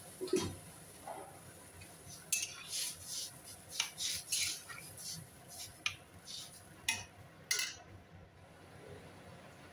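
A flat metal spatula scraping and knocking against a metal wok while stirring a thin, watery curry broth: a dull knock at the start, then a run of scraping strokes with a few sharp clinks, stopping about three-quarters of the way through.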